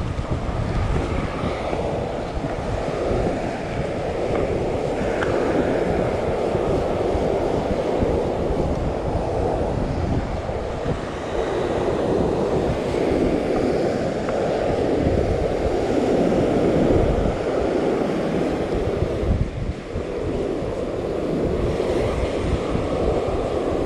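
Surf washing and breaking on a sandy shore, a steady rushing noise, with wind buffeting the microphone.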